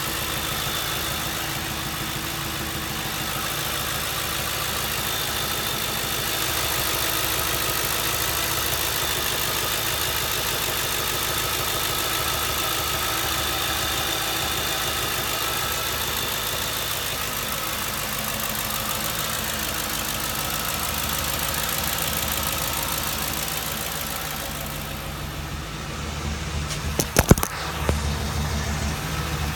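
A 2007 Ford Crown Victoria's 4.6-litre V8 idling, with a thin high whine over it for the first half. The engine is being checked for a misfire. A few sharp knocks come close together near the end.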